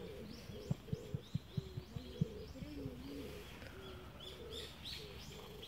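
A dove cooing in short, repeated low notes, with a small bird chirping high above it. A few soft low taps come in the first two seconds.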